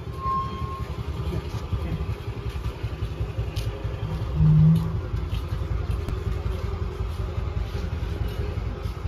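Large metal prayer wheel being turned by hand, rotating on its axle with a steady low rumble and clatter. A short, loud low hum about four and a half seconds in.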